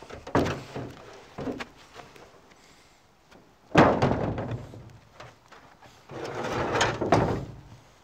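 Rusted sheet-metal panels of a wrecked car body being pulled and scraped: a few short scrapes early, a sudden loud scrape about four seconds in, and a longer scrape near the end.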